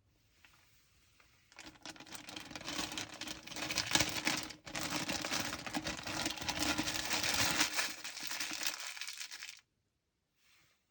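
Packaging crinkling and rustling as it is handled and pulled during an unboxing: a dense crackle of small clicks that starts about a second and a half in and cuts off suddenly about a second before the end.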